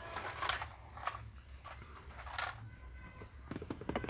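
Faint, scattered small clicks and scrapes, handling noise close to the microphone, with a cluster of quick clicks near the end.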